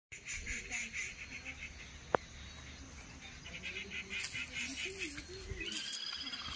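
Faint outdoor ambience of birds calling, with repeated rapid chirps and one sharp click about two seconds in.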